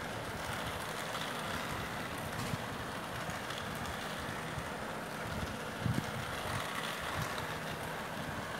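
Battery-powered toy train running around a plastic track: a steady whir from its small motor with its wheels rattling along the track, and a brief knock about six seconds in.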